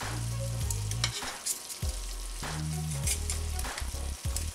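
Curry sauce sizzling in a stainless steel pan while grilled chicken pieces are pushed off metal skewers into it with a fork, with repeated metal scrapes and clicks.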